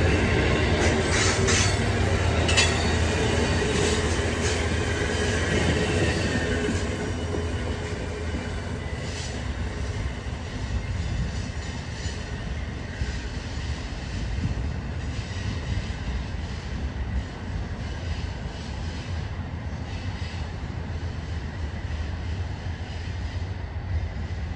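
Amtrak Northeast Regional passenger train's Amfleet coaches rolling past on the rails, wheels clicking over rail joints. The sound fades over the first several seconds as the end of the train pulls away, leaving a steady low rumble.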